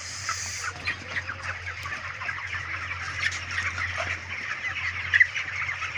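A large flock of 28-day-old chickens clucking, many short calls overlapping without a break, with one louder call a little past five seconds in. A steady low hum runs underneath.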